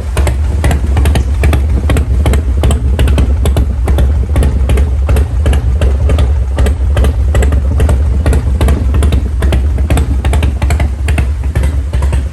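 Harley-Davidson FXR motorcycle's V-twin engine running steadily, loud, with a rapid, even pulsing.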